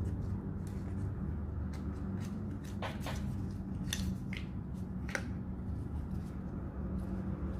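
Paper sticker packs and sheets handled on a table: soft rustling, with a few crisp paper snaps and crinkles between about three and five seconds in, over a steady low hum.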